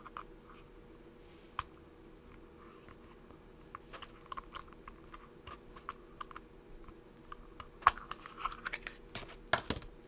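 Snap-fit plastic case of a small LED driver being pried open with a screwdriver: scattered small clicks and creaks of plastic, growing denser, with a few louder snaps near the end as the cover comes free.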